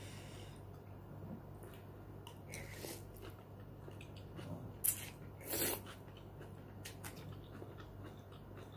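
A person eating noodle soup: slurping noodles off a spoon and chewing, with small wet clicks, the loudest a short slurp about five and a half seconds in, just after a sharp click. A steady low hum sits underneath.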